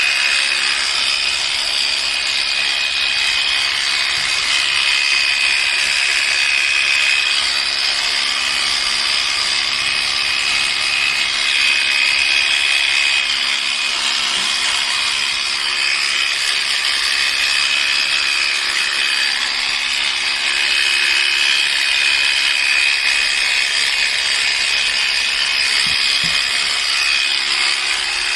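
Electric sheep-shearing clippers running steadily with a high-pitched whine, trimming wool.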